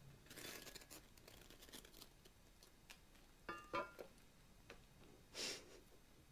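Quiet scraping and rustling as sticks and tinder are worked into a small metal hobo stove, with a couple of light metallic clinks a little past halfway and a short hiss near the end.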